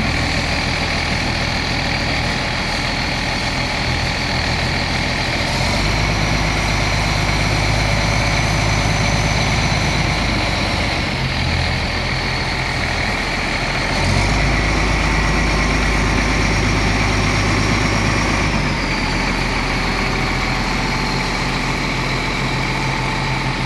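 Komatsu D65PX-12 bulldozer's diesel engine running with a steady high whine over it. The engine speeds up twice, about five seconds in and again about fourteen seconds in, and eases back each time some five seconds later.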